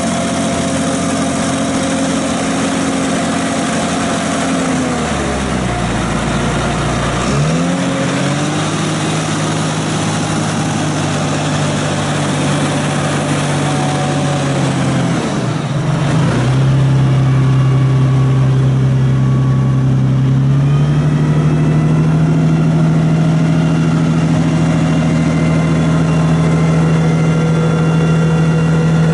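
John Deere 8420T track tractor's 8.1-litre six-cylinder diesel running. Its engine speed drops sharply twice, about five seconds in and again about fifteen seconds in, and picks back up each time. It runs louder through the second half.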